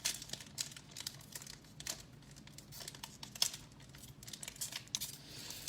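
Foil wrapper of an Upper Deck hockey card pack crinkling and tearing as it is opened, in a run of scattered sharp crackles.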